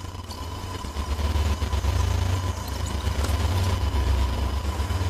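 Distorted electronic drone: a loud, wavering low rumble that swells about a second in, with a thin steady high tone running above it.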